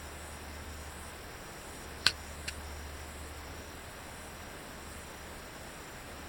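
Steady outdoor background noise with a constant low rumble, broken about two seconds in by two sharp clicks half a second apart, the first much louder than the second.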